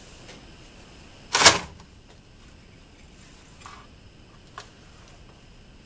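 One sharp mechanical clack about a second and a half in, with a brief ring after it, then two faint clicks later on.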